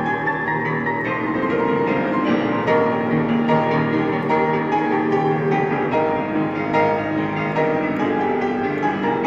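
Solo acoustic piano playing a pop song arrangement, a run of chords and melody notes.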